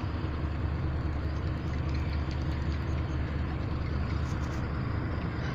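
Steady low engine rumble, with a few faint ticks about four seconds in.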